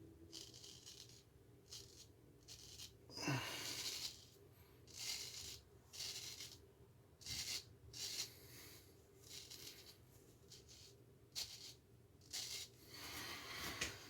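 Straight razor scraping through lathered stubble in short strokes, about a dozen in all with pauses between them.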